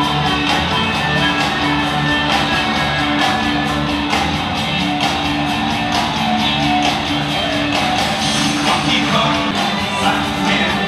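Live rock band playing loudly through a PA system, with electric guitar, a steady beat and a singing voice.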